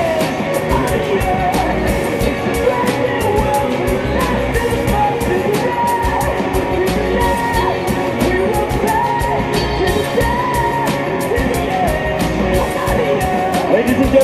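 Rock music with a male or female vocal over a steady, fast drum beat.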